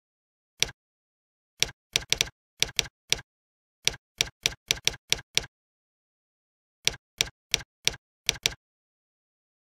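Computer keyboard keystrokes: about twenty sharp key clicks in quick irregular runs, with a pause of a little over a second about two-thirds of the way through.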